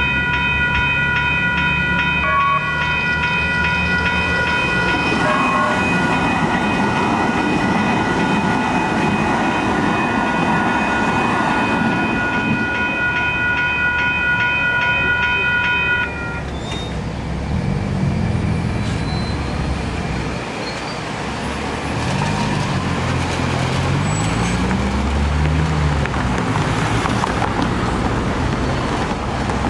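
A light-rail train runs through a grade crossing while the crossing warning bells ring steadily. The bells cut off suddenly about halfway through, the signal clearing as the train leaves. Road vehicles then pull away across the tracks, their engines rising and falling in pitch.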